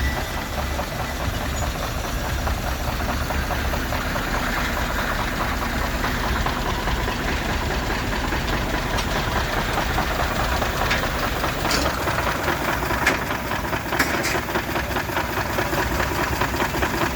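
Steam traction engine running steadily on the belt, its exhaust and running gear beating in a fast, even rhythm, with a few sharper clicks about two-thirds of the way in.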